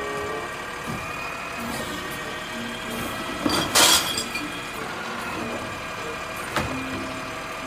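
Automated side-loader garbage truck running, its hydraulic arm whining as it lifts a wheeled bin and tips it into the hopper. A brief loud rush of noise comes about four seconds in as the bin is tipped and emptied, with a sharp clack near the end as the arm sets it back down.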